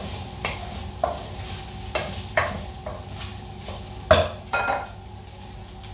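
Spatula stirring chicken and vegetables in a nonstick frying pan, scraping and knocking against the pan in about eight uneven strokes, loudest about four seconds in, over a steady sizzle.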